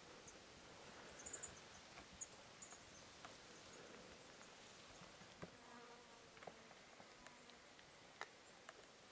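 Near silence: faint outdoor hiss with scattered soft ticks, a few short high chirps early on, and a faint buzz for a second or so about halfway through.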